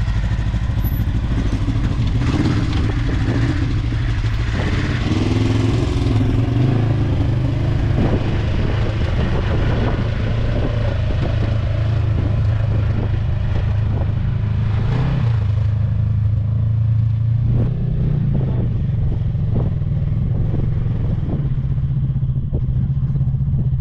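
Off-road vehicle engine running under load, its revs rising and falling several times, with scattered knocks and clatter throughout.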